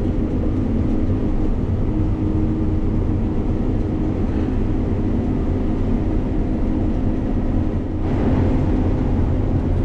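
Combine harvester running steadily while cutting soybeans: a continuous machine hum with steady low tones, growing slightly louder and brighter about eight seconds in.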